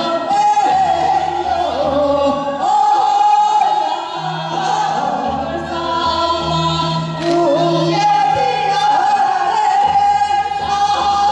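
Two women singing a Korean folk song (minyo) together through microphones, holding long wavering notes over a recorded accompaniment with a steady bass line.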